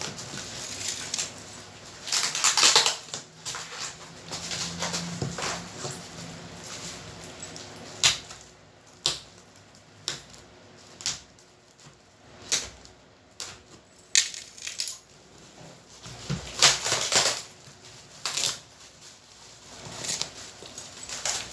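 Irregular rustling, scraping and knocks of cardboard packaging and a speaker driver being handled during unboxing, with a few sharper bumps.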